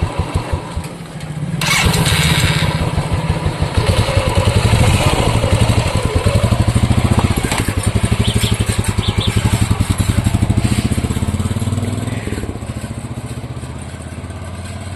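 Royal Enfield motorcycle engine idling with an even thump. The throttle is opened about two seconds in and held at higher revs, and the engine eases back down toward idle over the last few seconds.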